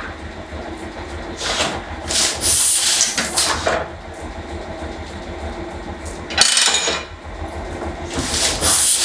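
1970 Heidelberg Windmill platen letterpress running with a steady mechanical rumble and clatter, making trial impressions without ink during make-ready. Louder hissing rushes come about a second and a half in, again around six and a half seconds, and near the end.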